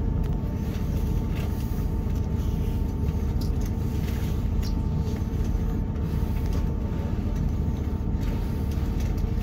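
Underfloor diesel engine of a Class 158 multiple unit idling while the train stands, heard from inside the passenger saloon: a steady low rumble with a constant whine near 1 kHz.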